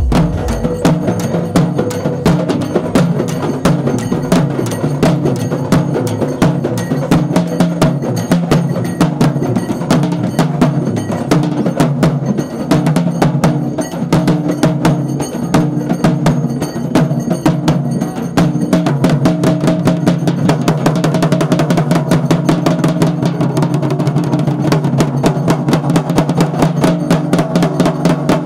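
Fast, continuous festival drumming with dense rapid strokes and a steady low tone beneath, the beat a woman dances to while carrying a decorated pot on her head.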